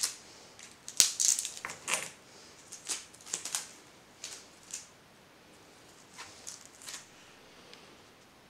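Clear sticky tape and paper being handled on a table: a sharp click about a second in, then short crackles and rustles as the tape strip is worked and a paper sail is pressed onto a straw.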